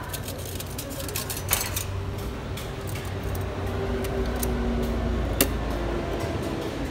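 Spoons clinking and rattling in a stainless steel utensil holder, then the metal lids of stainless steel condiment containers clinking as they are lifted and set back. Two sharper metal clinks stand out, about a second and a half in and about five seconds in, over a steady low hum.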